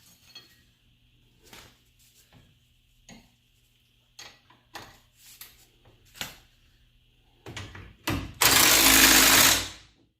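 Light clinks and knocks of tools and metal parts, then an impact wrench runs in one loud burst of about a second and a half near the end, driving in a strut fastener.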